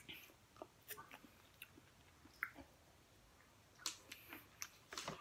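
Faint chewing of food, with scattered short wet mouth clicks and smacks.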